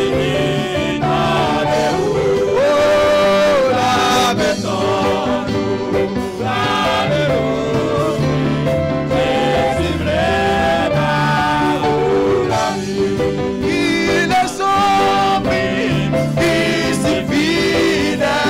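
A gospel hymn sung in Haitian Creole by a male lead singer and a second voice into microphones, over instrumental accompaniment with a steady low line.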